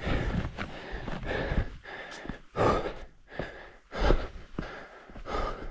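A person breathing hard in loud, separate breaths.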